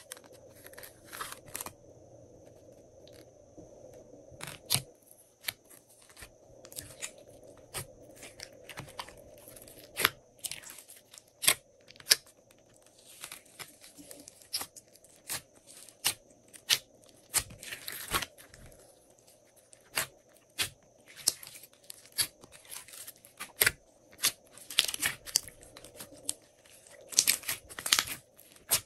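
Hands squeezing, folding and pulling apart glossy slime in a glass dish, giving many irregular sharp sticky pops and crackles. The pops come sparsely at first and thicken into quick clusters later on.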